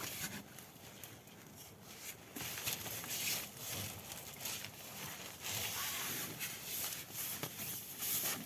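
Irregular rustling and crunching: a run of short scratchy noises that grows busier and louder about two and a half seconds in.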